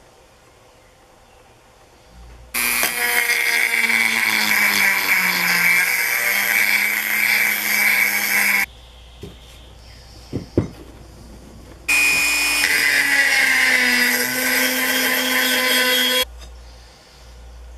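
Handheld rotary tool with a felt polishing bob running against a steel file, polishing the metal: two runs of about six and four seconds, a steady high whine that dips in pitch partway through the first run. A few sharp knocks fall between the runs.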